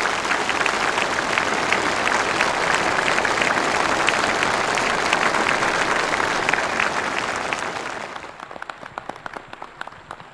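Applause from massed ranks of soldiers: a dense, steady wall of clapping that thins to scattered claps about eight seconds in and dies away near the end.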